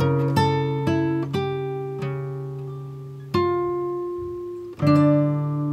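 Background music: acoustic guitar playing plucked notes that ring and die away, with two louder chords struck about three and a half and five seconds in.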